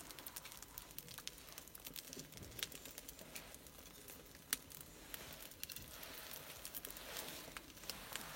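Faint crackling and snapping of a freshly lit birch-bark and kindling fire, with scattered small pops and one sharper snap about halfway through.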